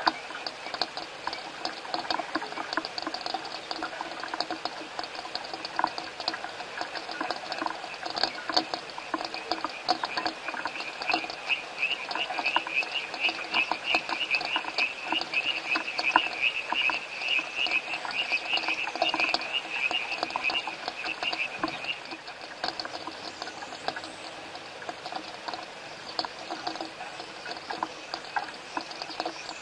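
A chorus of frogs calling continuously, with a loud pulsed trill joining about a third of the way in and stopping about three-quarters through, over the patter of rain.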